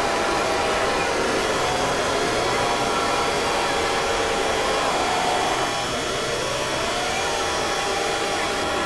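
Mock emergency alert alarm audio: a loud, harsh wash of steady noise layered with several held tones, with slow rising siren-like glides about two seconds in and again about six seconds in.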